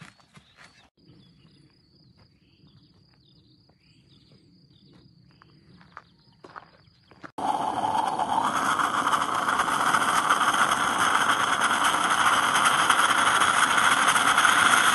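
Stovetop moka pot brewing on a gas camping stove: a loud steady hissing sputter starts suddenly about seven seconds in, as the coffee comes up and the pot steams. Before it, only a faint high steady tone.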